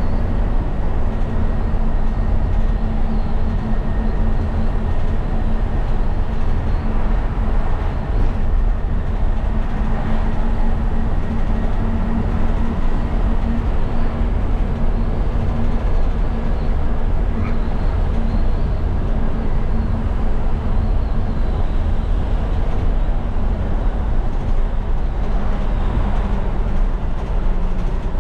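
In-cab sound of a Dennis Eagle Elite bin lorry on the move: its Volvo six-cylinder turbo diesel runs at a steady drone under road and tyre noise. The engine hum eases a couple of seconds before the end.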